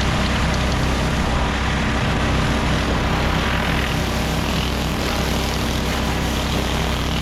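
An engine running steadily: a constant low drone with a steady hiss over it, unchanging throughout.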